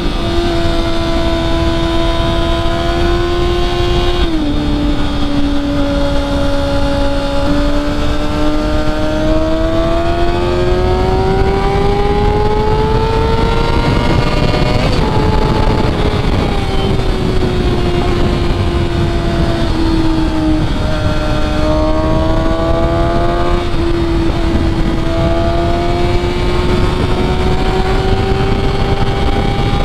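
Kawasaki ZX6R's inline-four engine at high revs through a cat-deleted aftermarket header, pulling hard under throttle over steady wind rush. The pitch drops abruptly at a gear change about four seconds in, climbs steadily, drops again around fifteen seconds, sags, then climbs again near the end.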